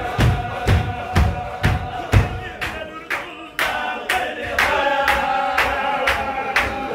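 Qadiri Sufi zikr: a circle of men chanting together, with a voice holding long sung notes over a steady beat of stamping and clapping about twice a second.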